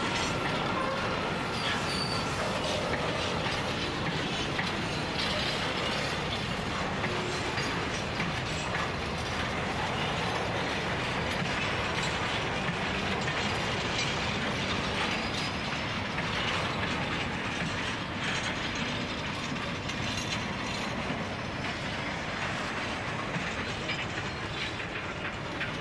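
Empty NGPF and NGKF grain hopper wagons rolling steadily past, their wheels and bogies clicking and clattering on the rails, easing off slightly near the end.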